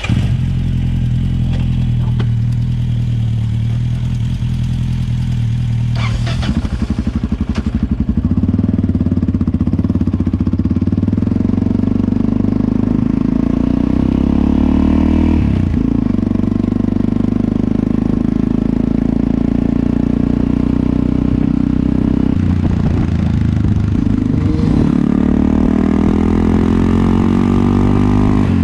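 Motorcycle engine running loud and steady while riding, its pitch shifting as the bike changes speed and gear, with a brief break in the engine note about a quarter of a minute in.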